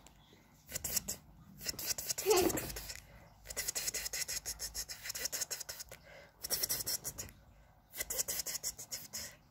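Close crackling and scratching in bursts as bead foam clay is squeezed and kneaded by hand, mixed with hands rubbing near the microphone.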